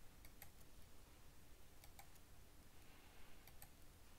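A few faint computer mouse clicks, some in quick pairs, over quiet room hiss.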